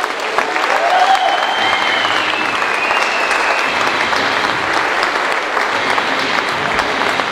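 Audience applauding and cheering, with a long whistle about a second in.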